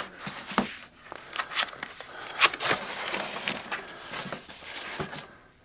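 Cardboard box flaps and a foam packing sheet being handled as the heated bed is uncovered: a quick run of rustles, scrapes and light knocks that dies away shortly before the end.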